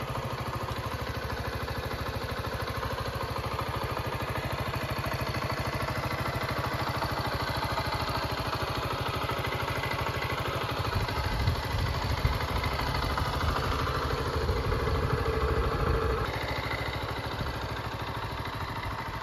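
Zontes ZT125-Z2's 124 cc liquid-cooled single-cylinder engine idling with a steady, even beat, growing somewhat louder for a few seconds about halfway through.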